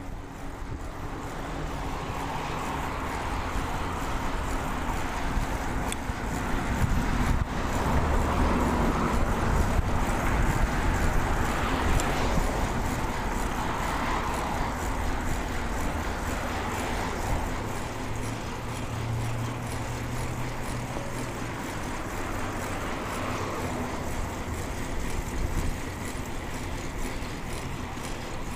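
Road noise heard from a moving bicycle: wind rumbling over a clip-on lavalier mic, with several cars passing, each swelling and fading over a few seconds.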